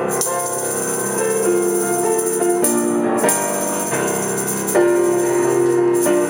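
Instrumental music with piano and light jingling percussion, notes changing every half second or so.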